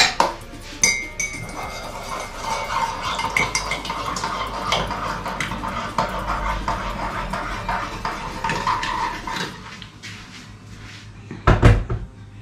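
Hot water poured from a stainless steel kettle into a mug: a steady pour of about eight seconds whose pitch rises slightly as the mug fills. Near the end comes a single loud clunk as the kettle is set down.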